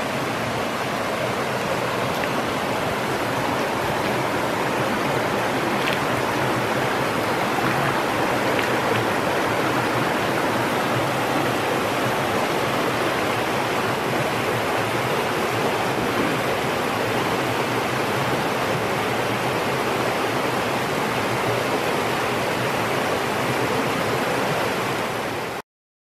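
Small waterfall pouring into a pool: a steady rush of falling water that cuts off suddenly near the end.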